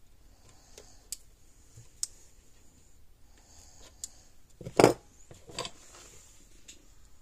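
Scattered light clicks and knocks of objects being handled on a workbench, with one louder knock a little under five seconds in and a smaller one just after it.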